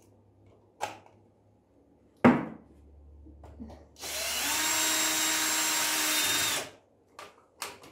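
Cordless drill-driver running at a steady speed for nearly three seconds, driving in the screws to tighten a wall socket in place, then stopping abruptly. Before it come a sharp knock a little after two seconds in and a few small clicks.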